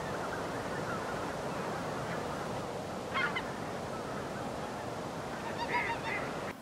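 A flock of waterfowl calling on the water at dusk: a dense, steady chatter of many voices, with louder single calls about three seconds in and again near the end.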